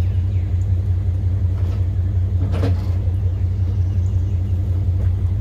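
Portable bandsaw sawmill's engine running steadily with a low hum, and a brief rushing noise about two and a half seconds in.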